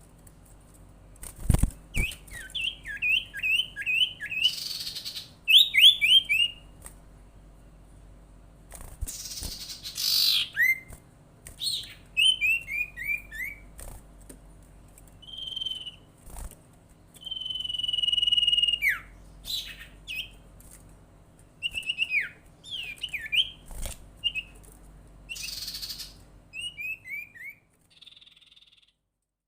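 Sirtu, a kind of iora, calling: runs of quick downward-slurred chirps repeated many times, a long held whistle about two-thirds of the way through, and short harsh rasps between the phrases. A dull thump comes about a second and a half in, and the call stops shortly before the end.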